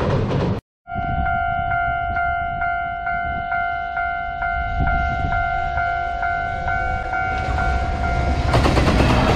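Japanese railway level-crossing warning bell ringing, an electronic clang repeating a little over twice a second. Near the end the noise of the approaching EF210 electric locomotive and its freight train swells up and takes over.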